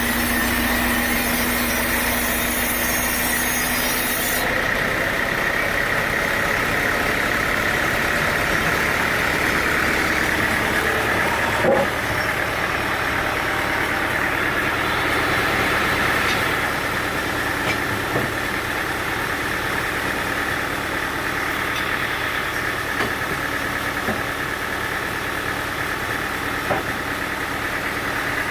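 Sawmill machinery running steadily: a motor hum with a whine. About four seconds in, a hissing cutting sound stops and the machine runs on without it. There is a single sharp knock about twelve seconds in.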